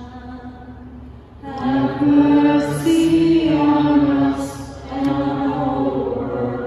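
A congregation singing a slow chant together in a church, with long held notes. The singing grows much louder about a second and a half in and breaks briefly about five seconds in.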